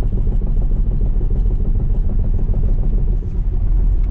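Tyre and road rumble inside the cabin of an electric Tesla Model S 90D rolling along, from Goodyear tyres without acoustic foam. It is a steady low rumble with no engine sound.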